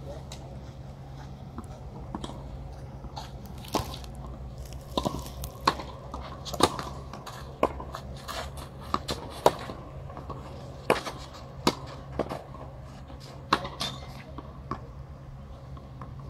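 Tennis rally on a clay court: sharp pops of the ball striking racket strings and bouncing, roughly one a second, beginning about four seconds in and stopping near the end, over a steady low hum.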